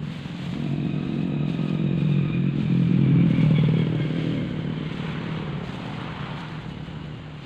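A motor vehicle's engine passing by, growing louder to a peak about three seconds in and then fading away.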